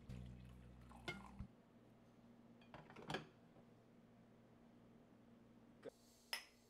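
A few faint, spaced clinks and knocks of a glass coffee carafe and ceramic mugs being handled on a kitchen counter.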